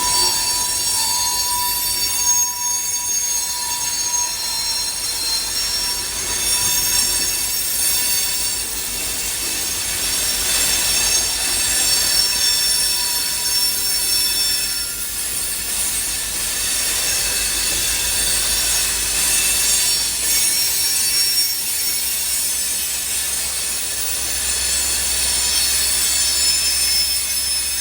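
Canadian National freight train rolling past with loud, continuous high-pitched screeching of steel wheels against the rails, over the steady rumble of the moving cars.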